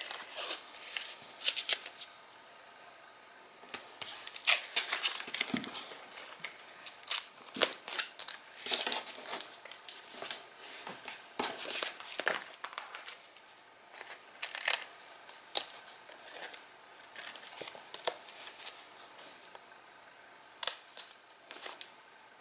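Paper masking tape being peeled from its roll, laid and pressed along the edges of a cardstock pocket, and trimmed with small scissors: an irregular run of short rustles, peels and snips.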